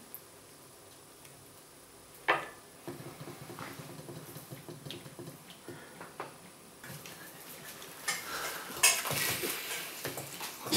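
Metal spoon clinking and scraping against a steel saucepan as pasta hoops in tomato sauce are spooned onto toast, with one sharp clink about two seconds in. In the last few seconds, louder wet eating sounds come in as the sauce-covered toast is bitten into.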